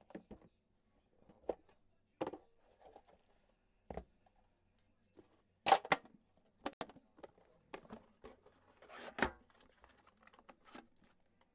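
Handling an Upper Deck The Cup metal card tin: scattered clicks and knocks of the tin lid being lifted off and set down, with some rustling. Two louder knocks come about halfway through and again near the end.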